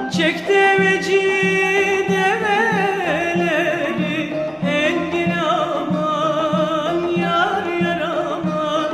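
Turkish folk music (a türkü): an ornamented melody with sliding, wavering notes over a steady beat of low plucked and struck notes, about two a second.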